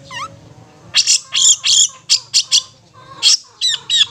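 Long-tailed shrike (cendet) giving its 'ngetet' chattering call: one short call near the start, then a run of loud, rough notes about four or five a second, a short break, and more notes near the end.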